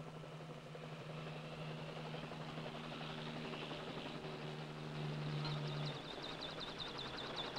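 Bell 47 helicopter running on the ground with its rotor turning, a steady engine drone. A rapid run of repeated high chirps starts near the end.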